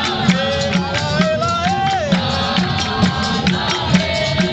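Capoeira roda music: a voice singing a melody over berimbaus, an atabaque drum and hand-clapping, with the drum and claps keeping a steady beat.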